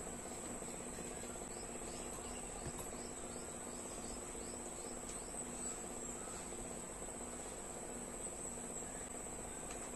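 A steady high-pitched trill over a faint low hum, with a few soft clicks.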